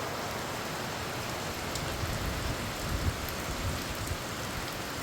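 Steady rain shower falling, an even hiss of rain on surfaces, with a little low rumbling around the middle.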